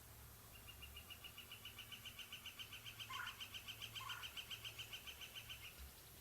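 A faint wild bird's trill: a rapid, even string of high notes, about six a second, lasting about five seconds. Two short, lower calls come in about three and four seconds in.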